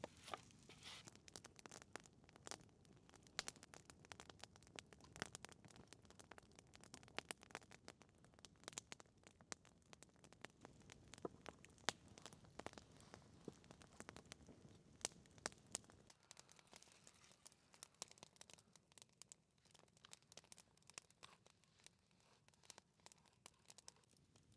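Faint close-up scraping and a steady scatter of small sharp clicks and crackles from knife work on a wooden stick and from handling a pepper mill and peppercorns. A low background rumble drops away about two-thirds of the way through.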